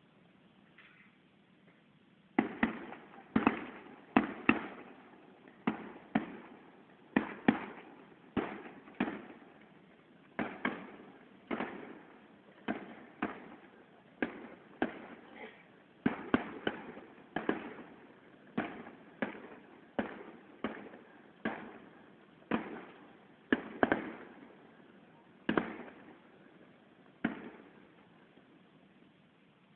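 Fireworks display: a long run of sharp firework bangs, about one every second, each trailing off in a rolling echo. The bangs start about two seconds in and stop a couple of seconds before the end.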